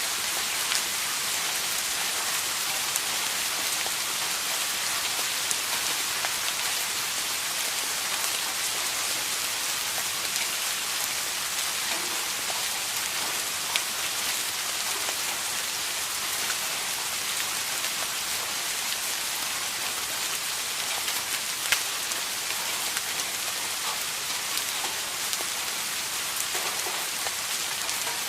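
Steady rain falling, an even hiss with scattered sharper drop hits, two of them louder, about 14 and 22 seconds in.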